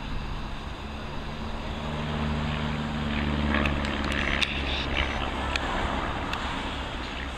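A single-engine Van's RV light aircraft's piston engine and propeller droning overhead during aerobatics. The steady drone swells louder for a few seconds midway, with a few faint crackles near the loudest part.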